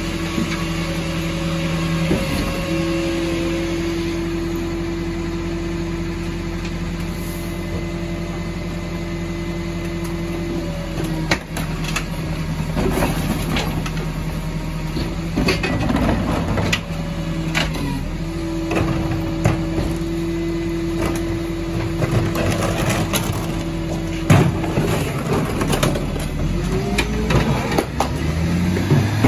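Rear-loader garbage truck running while its hydraulic bin lifter tips three wheelie bins into the hopper. A steady hydraulic whine comes twice, for several seconds each time, over the engine hum. Bangs and clatter of the bins and falling rubbish come in the middle and toward the end.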